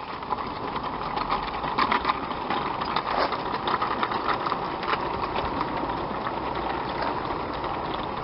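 Battery-electric brass Gauge 3 model of a GWR pannier tank locomotive hauling a rake of coal wagons up a gradient. A steady mechanical whirr of the drive runs with many small clicks and rattles of wheels on the track.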